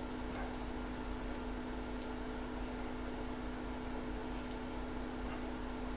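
A few faint, scattered clicks over a steady low electrical hum.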